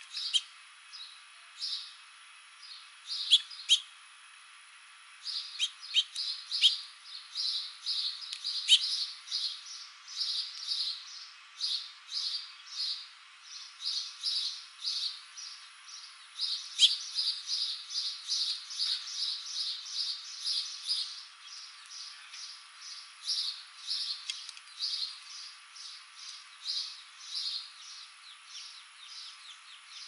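A small songbird chirping over and over, short high notes about two a second that start a few seconds in and keep on. A few sharp clicks or taps stand out above the chirps, the loudest at the very start and again a little past the middle.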